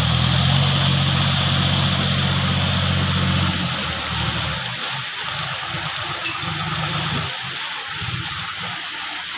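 John Deere tractor's diesel engine running steadily with a low drone that fades and turns patchy about four seconds in, over a steady hiss of heavy rain.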